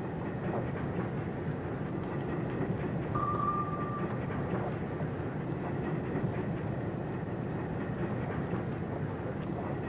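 Steady mechanical rumble with a short, high, steady tone about three seconds in.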